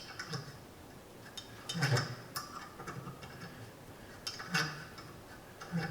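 3/8-16 hand tap being turned through an old bolt hole in a PTO housing, chasing the existing threads: scattered metallic clicks and scrapes several times, louder about two seconds in and again near the end.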